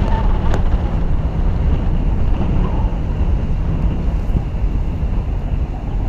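Steady low rumble of wind buffeting a car-roof-mounted microphone, mixed with the road and engine noise of the car driving slowly.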